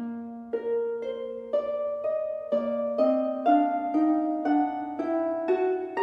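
Background music: a melody of plucked, harp-like notes, about two a second, climbing gradually in pitch.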